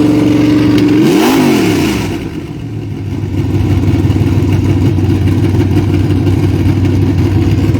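Freshly installed, not yet tuned 434 cubic-inch carbureted V8 in a Camaro running in place: held at raised revs, then a quick rev blip about a second in that rises and falls, after which it drops back and settles into a steady, choppy idle.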